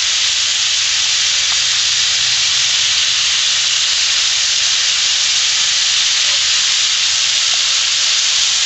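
Rabbit pieces frying in canola oil in a hot cast-iron skillet over charcoal: a steady sizzle.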